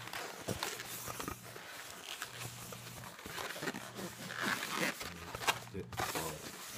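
White latex modelling balloons squeaking and rubbing against one another as they are twisted and bent by hand, with many short scratchy squeaks and some longer low groans.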